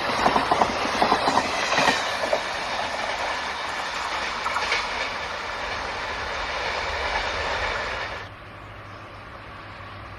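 Train running on the rails, its wheels clicking quickly over rail joints for the first couple of seconds, then a steady rumble. The sound drops suddenly to a quieter level about eight seconds in.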